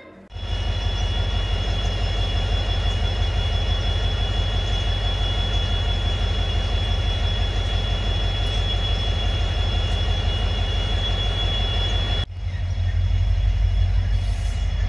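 Indian Railways WDP4D diesel locomotive running as it moves slowly along the track: a steady, loud low rumble with a thin steady whine above it. The sound breaks off for a moment about twelve seconds in, then the same rumble resumes.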